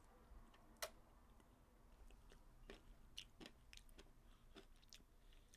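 Faint, scattered wet mouth clicks and smacks of someone sucking the crunchy Nerds candy coating off a gummy cluster, with one sharper click about a second in.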